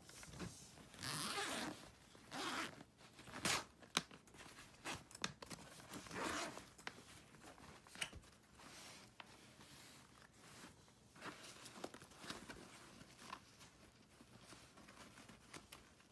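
Zipper on a Coleman Pop-up Box fabric storage bag being pulled in a series of short strokes, with a few sharp clicks between them.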